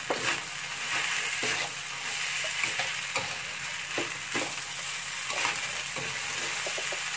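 Rice grains frying in a hot wok with a steady sizzle, a wooden spatula scraping and turning them about once a second.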